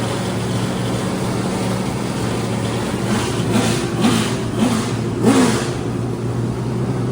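Vintage IROC race car's V8 engine idling with a steady rumble, then blipped four times in quick succession about halfway through, each rev rising and dropping back.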